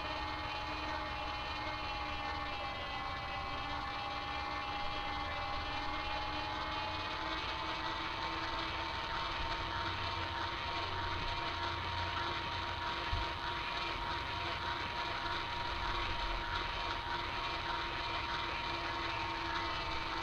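Small toy boat motor running steadily: a high whine with a lower hum under it and a light hiss. The whine dips slightly in pitch a few seconds in and climbs back.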